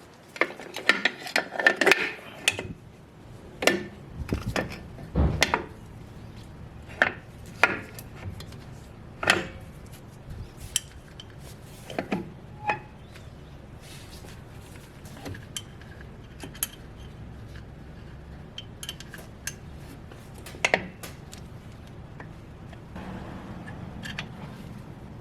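Metal clinks and knocks of drum brake parts and hand tools being handled during reassembly, frequent and close together in the first ten seconds, then sparser. A steady low hum runs underneath.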